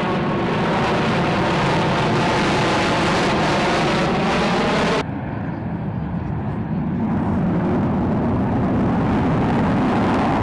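Jet noise from a four-plane formation of F/A-18 Hornets flying overhead, their twin General Electric F404 turbofans making a loud, steady roar. About five seconds in, the sound cuts abruptly to a duller, lower roar.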